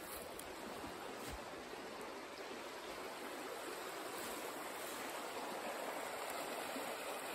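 A rocky forest stream running: a steady rush of water that grows slightly louder.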